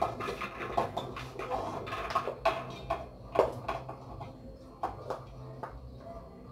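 A utensil scraping and knocking against the inside of an aluminium pot as cooked rice is scooped out into a steel bowl: irregular metallic clinks and scrapes, about eight or nine, over a steady low hum.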